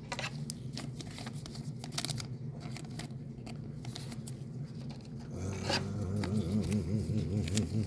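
Plastic card sleeve and toploader being handled as a trading card is slid in: light scattered rustles, scrapes and small clicks. A low wavering hum joins about five seconds in.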